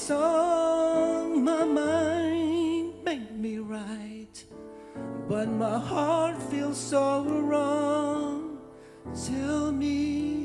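A slow song: a singer holding long notes with vibrato over soft instrumental accompaniment, pausing briefly between phrases.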